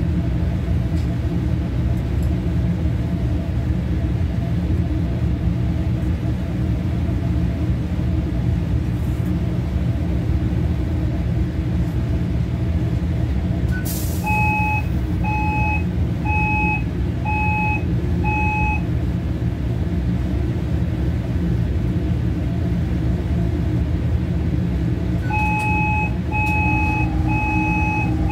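Steady low hum of commercial kitchen equipment. About halfway through, a sharp click is followed by five short electronic beeps about one a second, and the beeping starts again near the end.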